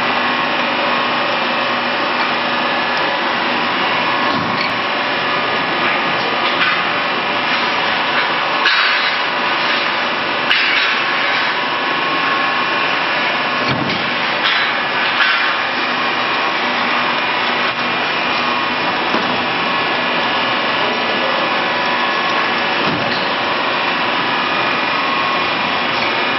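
Industrial woodworking machine running steadily: a constant mechanical hum with steady whining tones over hiss. Several brief louder rasping surges come and go partway through.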